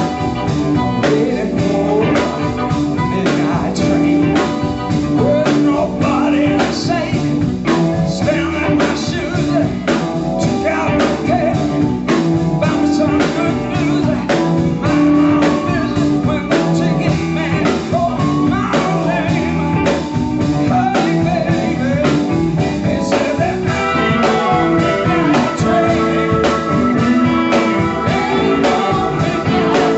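Live blues band playing: a steady drum-kit beat with electric guitar and a wavering lead line over them.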